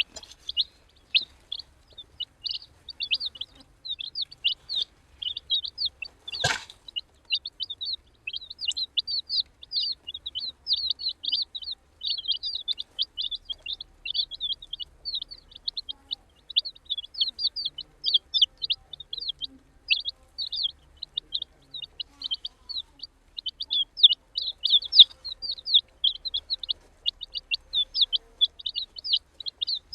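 A group of baby chicks peeping continuously, many short high chirps overlapping one another, with a single sharp knock about six and a half seconds in.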